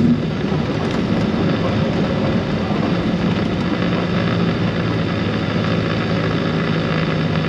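Vehicle running down the highway: a steady engine drone over road noise, with a low hum coming through more clearly about three seconds in.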